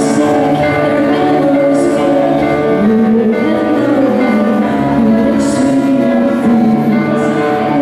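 A slow ballad played live by a small band: a woman singing over keyboard and drums, with a soft cymbal wash about every three seconds.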